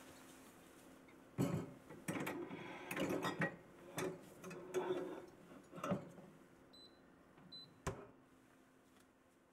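Household handling sounds: a run of clicks and knocks with rustling, then two short high electronic beeps and a sharp thud as the glass door of a compact wine cellar is pushed shut.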